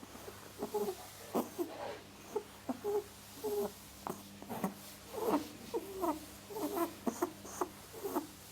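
A rabbit making a string of short, low calls, about two or three a second at an uneven pace.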